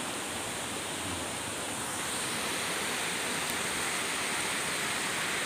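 Steady rushing of a waterfall and the river flowing below it, an even wash of water noise that grows a little louder about two seconds in.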